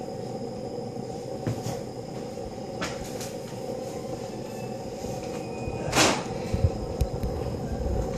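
Gas burner under a model steam engine's boiler, hissing steadily. A few sharp clicks stand out, the loudest about six seconds in, followed by some low knocks.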